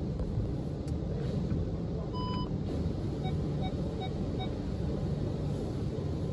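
Automatic car wash heard from inside the car's cabin: a steady low rumble of water spray and wash machinery on the bodywork. About two seconds in comes a single electronic beep, then four short, evenly spaced beeps.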